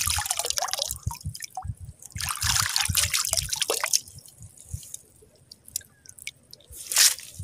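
Hands swishing and splashing in shallow seawater to rinse a clump of lukot. There are two bouts of splashing in the first four seconds, then quieter drips and trickles, and one short splash near the end.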